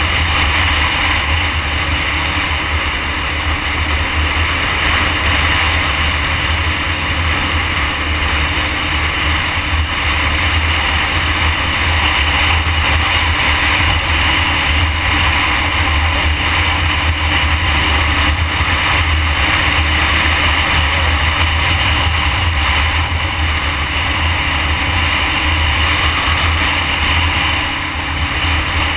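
Sport motorcycle cruising at highway speed, heard from a camera on the bike: a steady rush of wind over the microphone with the engine running beneath it.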